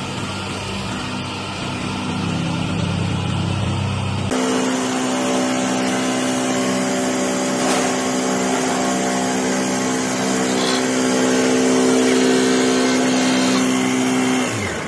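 Industrial mattress-making machine running with a steady motor hum. About four seconds in the sound switches abruptly to a higher, steadier hum, which stops just before the end.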